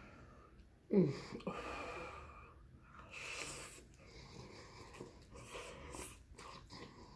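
Close-miked eating sounds of chili cheese spaghetti: chewing and wet mouth noises with breathy exhales. About a second in comes a short hum that falls in pitch, the loudest moment.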